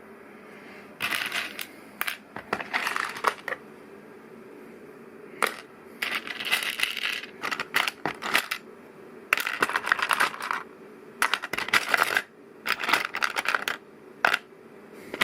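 Loose LEGO plastic pieces rattling and clicking in bursts, as if being rummaged through to find a part. The bursts come several times, each a dense clatter of small clicks lasting about a second, over a faint steady hum.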